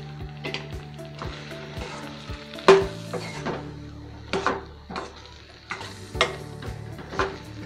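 Steel ladle scraping and clanking against a stainless steel kadai as fried chicken pieces are stirred through the sauce, which is sizzling. The clanks come irregularly, the loudest about two and a half seconds in, over background music.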